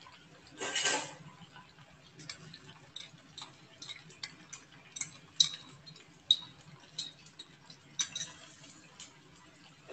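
Chicken pieces frying in oil in a karahi: irregular sharp crackles and pops, with two brief louder bursts, one about a second in and another near the end.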